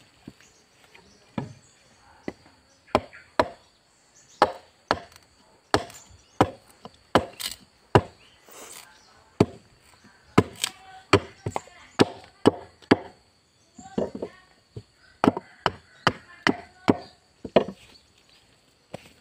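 A hand blade chopping into a meranti plank set on end against a wooden beam. About thirty sharp chops come unevenly, roughly one to two a second, with a couple of short pauses, as the plank is trimmed to a marked line.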